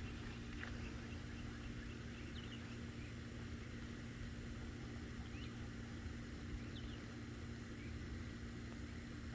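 Quiet outdoor background: a steady low hum with a few faint, short high chirps scattered through it.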